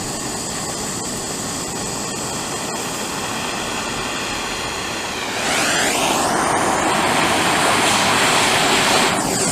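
Handheld gas torch flame hissing steadily while heating flat copper to melt lead-free solder. About five seconds in it grows louder, with a sweeping change in pitch.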